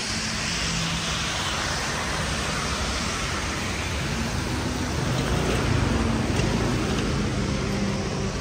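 Steady hiss of rain and traffic on a wet city street. A car's engine passes close by, loudest about five to seven seconds in.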